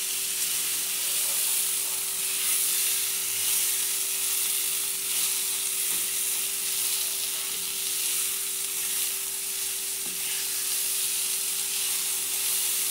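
Masala-coated jackfruit pieces sizzling as they fry in a pan while a spatula stirs them, with a steady hum running underneath.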